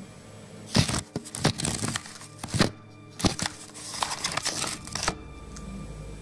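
Handling noise from a recording camera being picked up and moved close to its microphone: an irregular run of scrapes, knocks and crackles from about one second in to about five seconds in.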